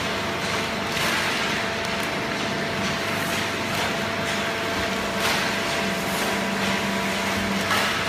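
Fully automatic horizontal hydraulic paper baler running with its chain-plate feed conveyor: a steady mechanical drone with a constant low hum. A handful of brief clatters and rustles of waste paper come through, and the low hum grows louder for a while in the second half.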